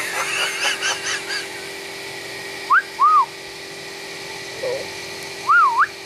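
Common hill myna whistling: a quick run of chirps, then loud, clear whistles about three seconds in, one rising and one arching, a short low warble, and a loud rising-falling-rising whistle near the end.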